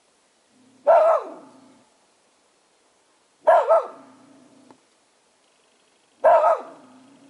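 Soft-coated wheaten terrier barking at a sheeted 'ghost' figure: three single barks about two and a half seconds apart, with a low growl after each.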